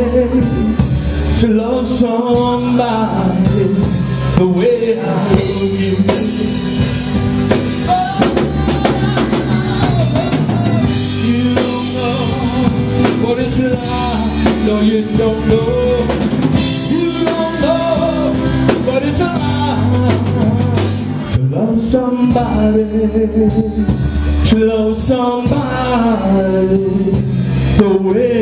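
Live blues and soul band playing a song, with a drum kit keeping a steady beat under bass and electric guitar and a man singing.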